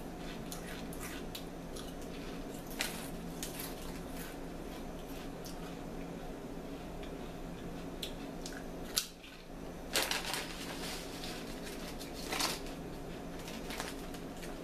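A potato chip being bitten and chewed: scattered sharp, crisp crunches, a few louder ones near the middle and later, over a steady low hum.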